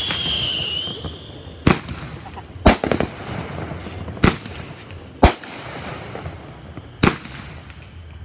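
Fireworks: a whistling firework's falling whistle trails off in the first second. Then five sharp bangs of exploding shells follow at irregular gaps of about one to two seconds.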